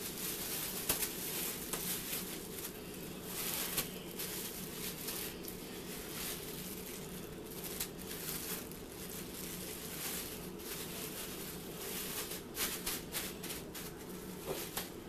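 Thin plastic shower cap crinkling and rustling in irregular crackles as it is pulled over hair and tucked around the ears, over a steady low hum.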